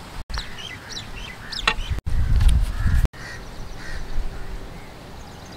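Birds calling repeatedly over low gusts of wind on the microphone, the audio cutting out briefly three times.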